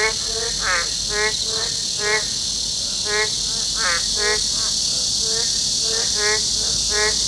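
A steady, high-pitched summer insect chorus, overlaid by short pitched animal calls repeating a few times a second in irregular runs, with a pause of about a second and a half past the middle.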